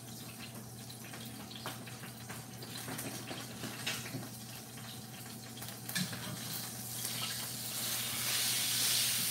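Garlic and red pepper flakes sizzling in butter and oil in a stainless steel skillet: a steady hiss that grows louder near the end as the pan comes closer, with a few light knocks.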